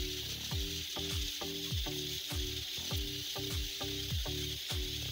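Pressure cooker on the stove hissing steadily with steam while it cooks, under background music with a steady thumping beat.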